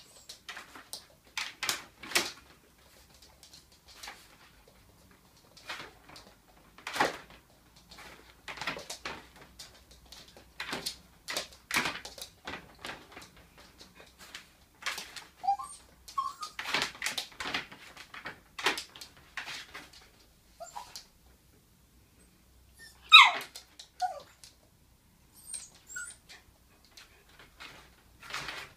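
Small dog whimpering and whining for a ball it cannot get out of a plastic laundry basket, with many short rough sounds throughout. A few short high whines come about halfway, and one loud whine falling steeply in pitch comes about two-thirds of the way in.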